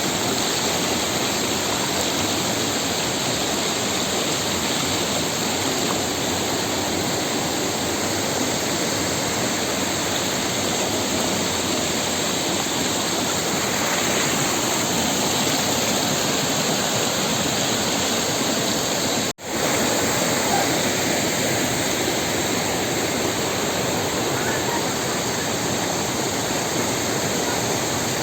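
Waterfall: a steady, even rush of falling water, cut off for an instant about two-thirds of the way through.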